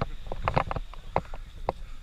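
White-faced capuchin monkey eating close to the microphone: a quick, irregular series of crunching clicks over a low rumble.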